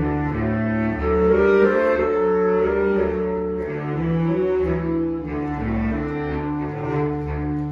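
Music on bowed string instruments: slow, held notes over a deep sustained low line, with the notes changing every second or so.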